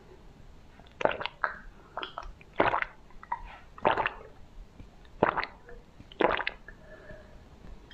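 Close-miked ice cream eating: about seven separate wet, squishy bites and mouth sounds.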